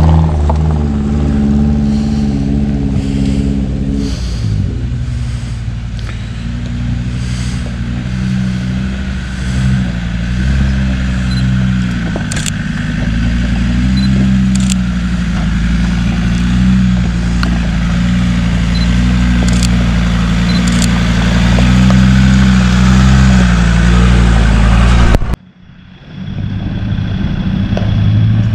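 Off-road 4x4 engine running steadily at low revs as it crawls along a rough lane, its pitch shifting down once about four seconds in, with a few sharp clicks over it. The sound drops out suddenly near the end and comes back.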